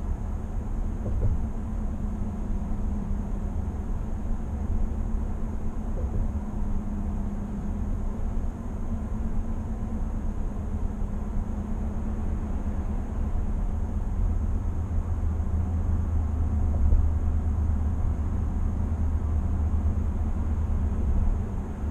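Steady low road and tyre rumble inside the cab of a 2020 GMC Sierra 1500 AT4 pickup cruising at highway speed.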